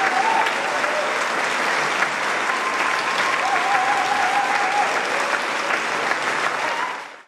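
Concert-hall audience applauding steadily, with a few long held calls from the crowd over the clapping; the applause fades out quickly near the end.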